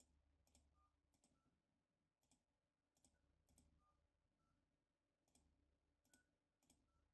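Near silence, with very faint mouse clicks as digits are entered on a softphone's on-screen dial pad.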